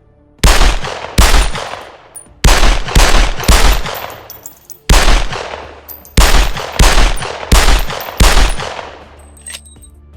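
Glock 30 .45 ACP subcompact pistol firing about a dozen shots in quick strings, each crack trailing off in a ringing echo, with faint metallic clinks between shots.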